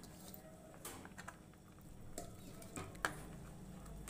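A few light clinks of utensils against a steel kadhai as spinach is tipped in and stirred into a thick milky curry, the sharpest about three seconds in.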